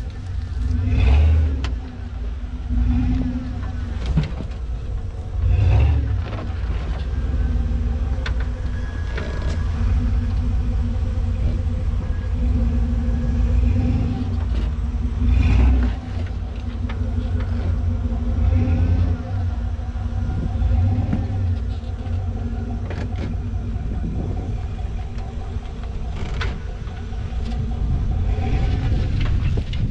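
Jeep Wrangler TJ's engine running at low revs while rock-crawling, with several brief surges of throttle. Occasional short knocks are heard over the engine.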